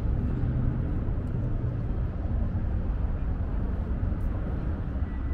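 Car engines idling in a crowded car park, a steady low rumble with no single engine standing out.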